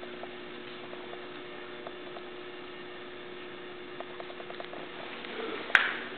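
Steady electrical hum with faint scattered soft ticks. The hum gives way about five seconds in, and a sharp click comes just before the end.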